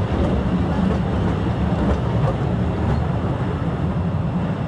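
Postojna Cave's open-carriage underground train running through a rock tunnel, heard from a seat aboard: a steady low rumble of wheels on rails and running gear.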